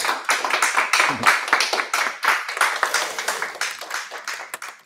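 Small audience applauding at the end of a talk, a dense patter of hand claps that thins out near the end.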